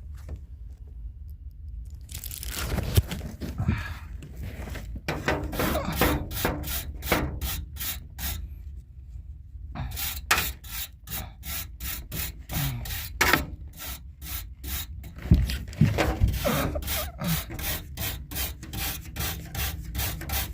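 Repeated rasping, scraping strokes, about two to three a second, with a break of a second or so about halfway through.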